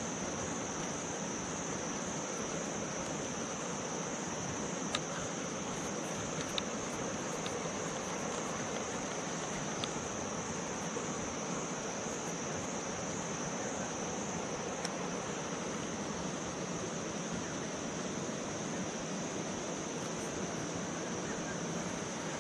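Insects buzzing steadily in one constant high drone over an even background hiss, with a few faint clicks scattered through.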